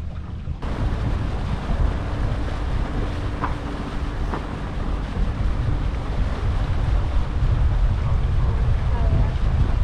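Wind buffeting the microphone over the steady low rumble of a boat running across open water; it gets louder about half a second in.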